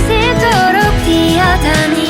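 Pop song music playing, with a sliding, gliding lead melody over sustained accompaniment.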